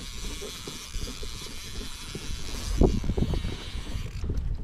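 Wind rumbling on the microphone, with irregular light knocks and a louder thump about three seconds in.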